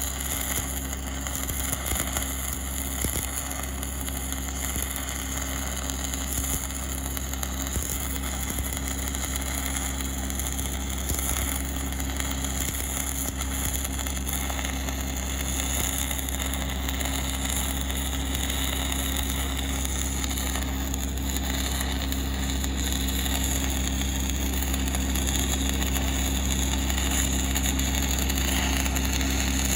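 Stick-welding arc from a 1/8-inch 6010 rod at about 100 amps, a steady crackle and sizzle as the rod is whipped along the puddle. Under it runs a steady engine-like hum.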